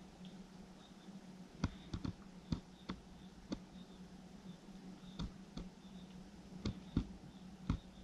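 Raccoon eating oatmeal from a plastic bowl: scattered sharp clicks and taps against the bowl, about a dozen, at uneven intervals.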